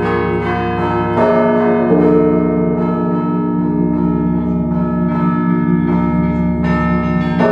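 Russian Orthodox church bells rung together in a zvon: many bells ringing over one another, with fresh strikes about a second in, at two seconds and near the end. The deep bass bell sounds again every couple of seconds.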